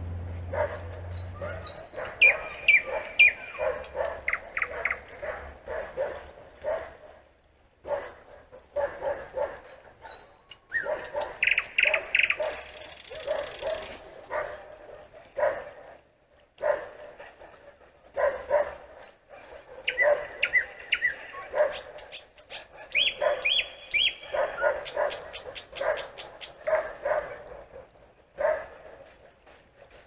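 Nightingale singing: fast runs of sharp clicking and rattling notes, a raspy phrase, and now and then a string of short high whistles, with brief pauses between songs.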